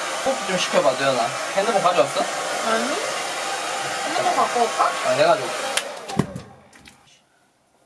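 Handheld hair dryer blowing steadily as it dries long hair, then switched off about six seconds in.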